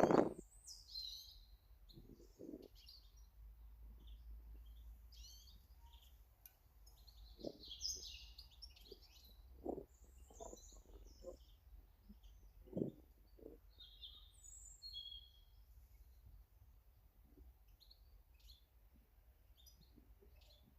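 Small garden birds chirping and calling: many short, high chirps scattered throughout, with a handful of soft low knocks in the middle stretch and a steady low rumble underneath.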